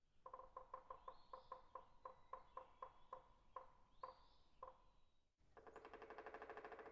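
Quiet woodpecker sound as the timer's end signal: a series of separate wooden taps, about four a second, with a couple of faint bird chirps, then a fast drumming roll starting about a second and a half before the end.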